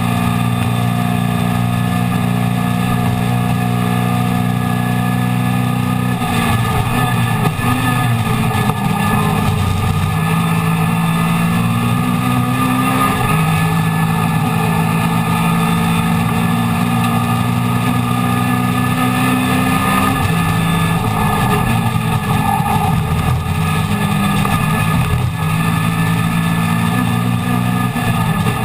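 Racing Mini's A-series four-cylinder engine, loud inside the stripped cabin, running at high revs under full throttle. Its pitch holds steady for long stretches, then drops and climbs again a few times.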